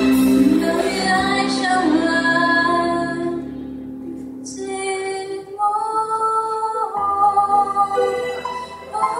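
Woman singing a Mandarin pop song into a handheld microphone, holding a long note at first, easing into a soft lull about four seconds in, then going on with the next phrases.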